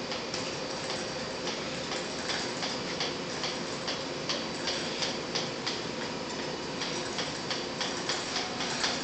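Ride-on motorized cart rolling slowly across a concrete floor, with a regular ticking from its running gear, about two to three ticks a second, over a steady hum.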